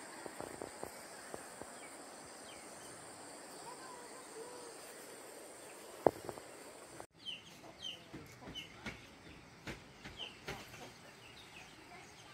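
Faint village morning ambience: a steady low hiss with a thin high insect drone and a few light clicks, then, after an abrupt cut about seven seconds in, many short high chirps of birds and fowl with small clicks.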